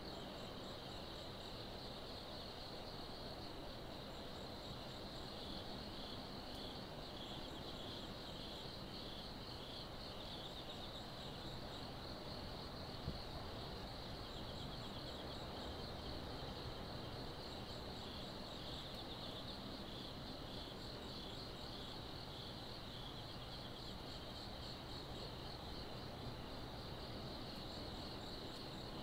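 Night insects chirping in a steady, pulsing chorus, with short high trills recurring every few seconds, over a faint low background rumble.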